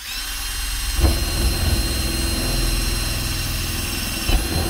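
Power drill with a wood boring bit running at full speed and boring through the wooden gable wall, its motor whining steadily. The bit bites into the wood about a second in, adding a heavy rumble, and the motor winds down as the trigger is let go near the end. It is punching a pilot hole from inside the attic to mark where the gable vent opening goes.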